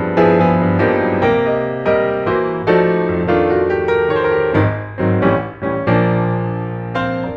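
Background piano music: a melody of struck notes over sustained chords, ending on a final chord that rings and fades away near the end.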